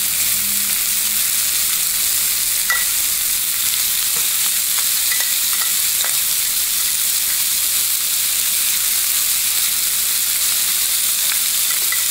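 Oil-coated chicken strips searing in a nonstick frying pan over medium-high heat: a steady sizzle, with a few faint ticks.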